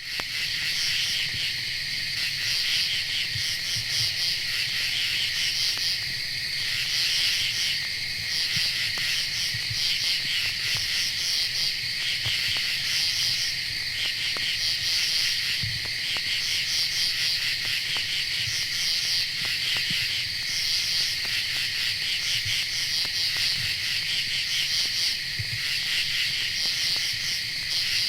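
A dense chorus of crickets chirping continuously, many rapid overlapping trills, cutting in abruptly at the start and holding steady.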